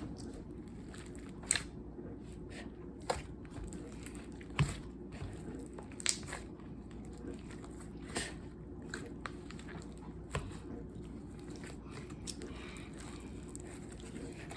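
A large mass of sticky slime being kneaded and mixed by hand, giving off sharp little pops and clicks about every one and a half to two seconds over a faint steady hum.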